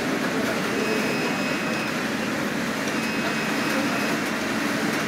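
Computerised flat knitting machine running steadily, a continuous mechanical whir with a faint high whine that comes and goes about every two seconds.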